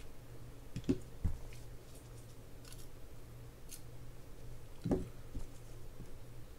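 Small tools and parts of a Penn Battle III spinning reel being handled on a workbench: two soft knocks about a second in, another near five seconds, and a few faint light clicks.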